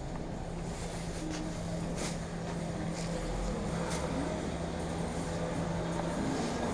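Car driving, heard from inside: a steady low engine hum with road noise and a few faint clicks.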